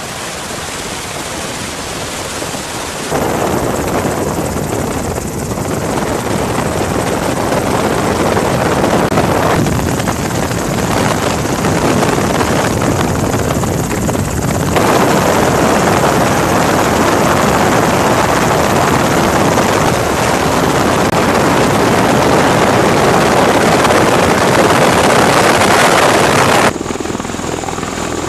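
Loud, steady rushing of helicopter rotor noise mixed with wind, without speech, shifting in level at several edits. Near the end it changes to the quieter, steady drone of an MV-22 Osprey tiltrotor's rotors as it hovers.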